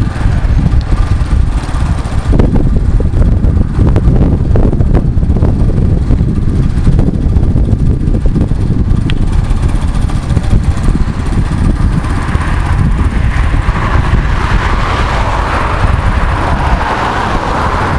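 Steady wind buffeting and rumble on the microphone of a camera carried on a moving bicycle. From about twelve seconds in, a car's tyre noise swells as it approaches and passes.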